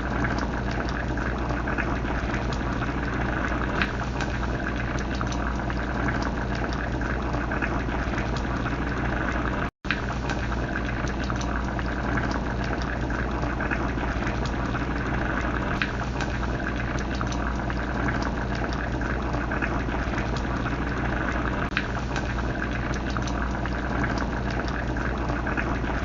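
Crab rasam boiling in a pot: a steady bubbling hiss with small scattered pops over a constant low hum. The sound drops out for an instant about ten seconds in.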